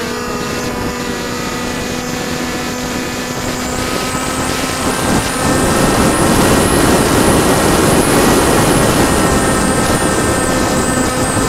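Radio-controlled model plane's motor and propeller heard from a camera on the airframe: a steady pitched whine. A rush of wind builds over it in the second half as the plane dives low and fast.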